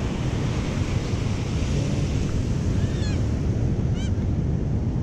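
Ocean surf washing onto a sandy beach with wind buffeting the microphone, a steady rushing noise, with a few short high chirps about three and four seconds in.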